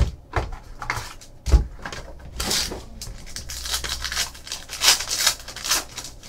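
Foil trading-card packs from a 2013 Panini Crown Royale football box crinkling and being torn open, with the cards slid out of the wrapper. Irregular rustles and crackles come through, with a knock of handling about a second and a half in.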